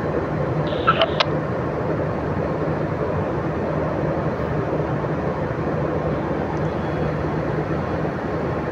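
Steady low rumble and hum of a passenger train moving off, heard from the guard's van doorway, with a short high chirp and a click about a second in.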